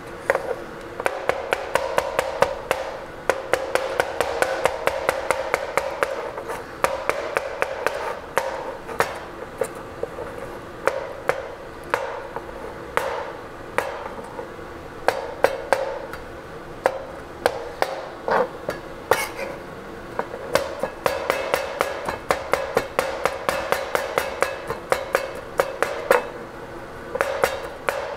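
Knife chopping cooked duck, chicken and pork on a cutting board: a fast, uneven run of sharp knocks, several a second, with a few short pauses.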